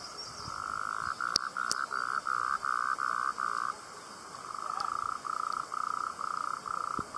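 An animal calling in a run of short, evenly spaced pulses, about three a second, in two bouts of about three seconds each. Two sharp clicks come about a second and a half in.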